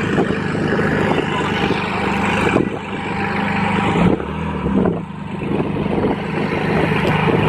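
A vehicle engine running steadily at idle: a low, even drone whose note shifts slightly about four to five seconds in.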